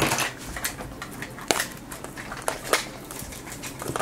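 Scattered light clicks and taps of small plastic pieces: miniature toy groceries set down on a tabletop and a plastic capsule ball being handled as it is opened.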